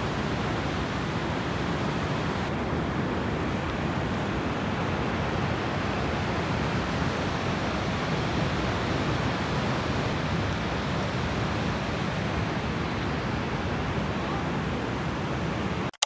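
Niagara's Horseshoe Falls plunging, heard close to the brink as an even, unbroken rush of falling water, cut off abruptly at the very end.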